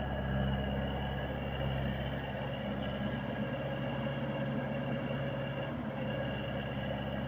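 Engine of a 35 hp wheeled skid steer loader running steadily at an even speed.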